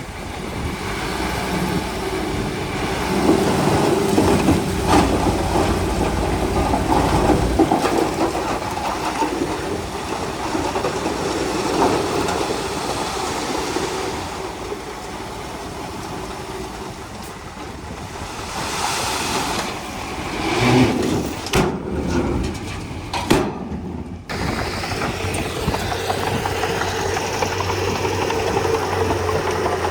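Bulldozer's diesel engine running under load as it works, getting louder and easing off in turn, with a couple of brief abrupt breaks in the sound a little over two-thirds of the way through.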